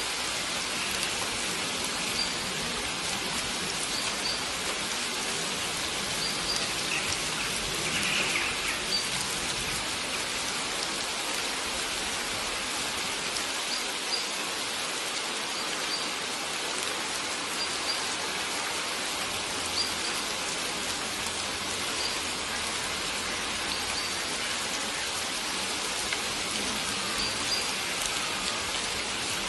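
Steady rain falling, mixed with a flowing stream. A faint short high chirp recurs about every two seconds.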